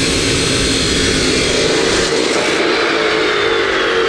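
Hercules abrasive chop saw running at speed, its cutoff wheel grinding through a metal pipe with a harsh, steady grind. About two seconds in the deep part of the sound drops away as the cut finishes, and the motor keeps running freely.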